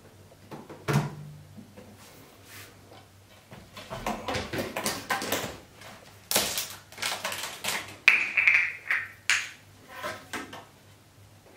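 Hand pump being worked to move distilled water from a bottle into a water rower's tank: irregular plastic squeezing and handling noises, with a thump about a second in and a brief higher-pitched sound around eight seconds in.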